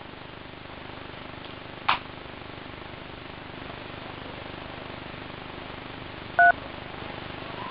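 Faint steady hiss with a sharp click about two seconds in, then a single short two-tone keypad beep from a handheld device's buttons about six seconds in, the loudest sound.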